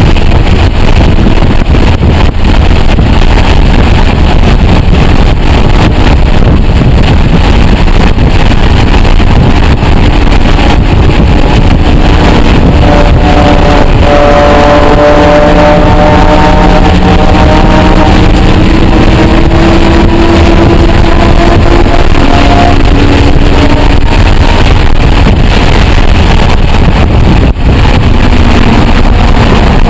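Cabin sound of a Roush 427R Mustang's supercharged 4.6-litre V8 under load on track, mixed with heavy road and wind noise at a very loud, near-saturated level. About halfway through, the engine note comes through more clearly, rising slowly in pitch as the car accelerates, then drops.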